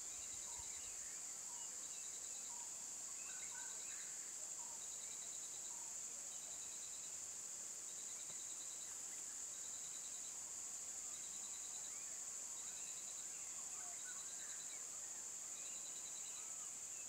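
Insects calling: a steady high-pitched drone, over which a chirping insect sounds a short rapid trill about every one and a half seconds. Faint scattered bird chirps are heard behind them.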